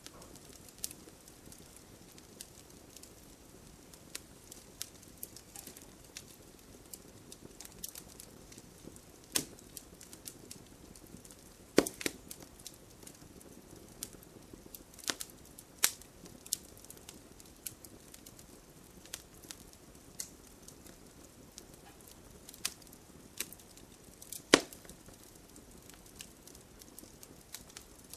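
Wood fire burning, a low steady hiss with irregular crackles and sharp pops, the loudest about twelve seconds in and near the end.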